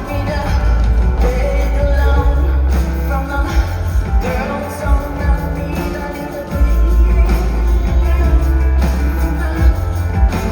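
Live rock band performance: a woman singing over heavy bass, keyboards and a drum beat.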